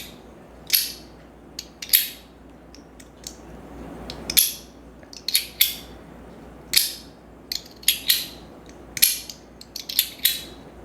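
Compoform astronaut slider coin being slid back and forth, its metal parts snapping into place with a sharp metallic click every second or so, some in quick pairs, and a short slide rubbing into one click about four seconds in.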